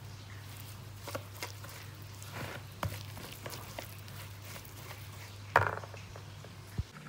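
Wire whisk stirring a thick semolina and curd batter in a bowl: irregular soft scrapes and clicks, with one louder knock of the whisk against the bowl a little past five seconds in. A steady low hum runs underneath.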